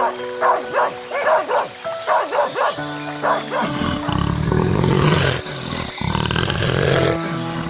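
A run of short, quick animal calls for the first half, then from about halfway a deep, rough, sustained roar, typical of a lion, over background music.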